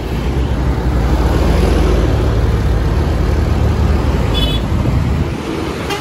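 Diesel tour bus engines rumbling loudly as the buses drive past close by. The rumble swells about one and a half seconds in and eases off near the end. A brief high tone sounds about four and a half seconds in.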